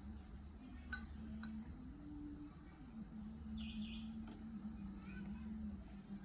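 Crickets chirring steadily in the background, with a faint low wavering hum, a couple of small clicks about a second in and a short high chirp about halfway through.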